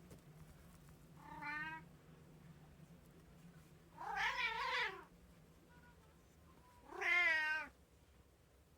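Domestic cat meowing three times, a few seconds apart: the first is faint, and the second and third are louder and longer.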